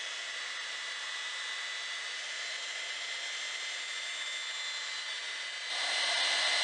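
Heat gun running steadily, a blowing hiss with a thin whine over it, set to about 800 degrees and softening the glue in a drawer's dovetail joint. Near the end it gets suddenly louder and brighter.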